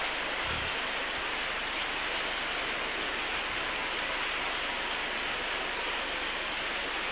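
Steady, even hiss-like noise with no distinct events in it.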